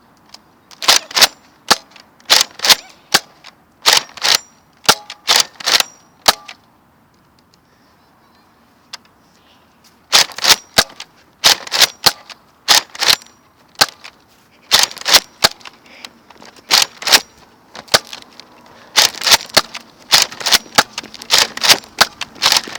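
Nerf dart blasters firing again and again, sharp plastic clacks in quick runs, with a break of about four seconds some six seconds in.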